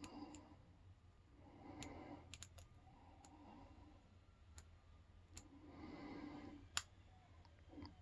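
Faint ticks and light clicks of a steel hook pick working the pin stacks inside an all-brass padlock under heavy tension, with one sharper click near the end as a pin sets.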